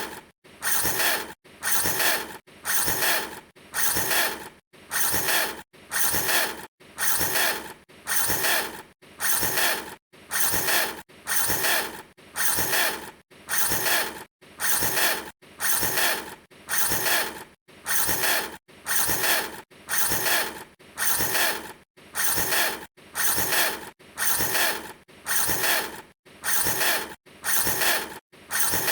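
A short mechanical revving whir repeated over and over at an even beat, about three every two seconds. Each one rises a little in pitch and then cuts off sharply.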